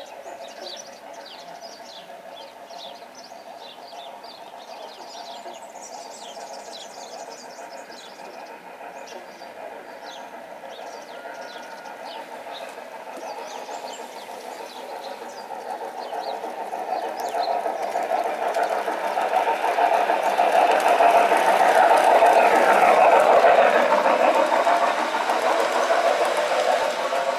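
Garden-scale model train running along its track, the locomotive and coach wheels running steadily on the rails. It grows louder and peaks in the last few seconds as the train passes close by. Birds chirp during the first half.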